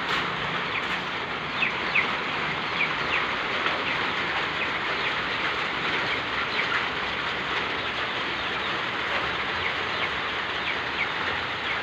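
Steady heavy rain falling, with short high chirps scattered through it.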